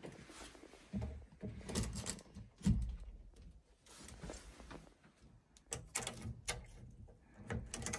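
Handling noise: a door pushed open, then irregular clicks and knocks as a power-flush hose coupling is fitted onto the valve on the heating pipework, with a dull thump about three seconds in.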